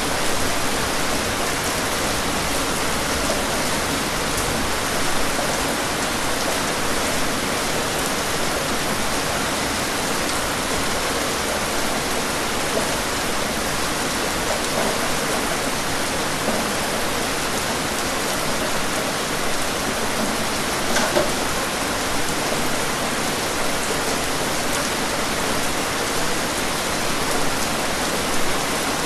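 Steady rain: an even hiss of falling rain, with a few louder drops standing out now and then.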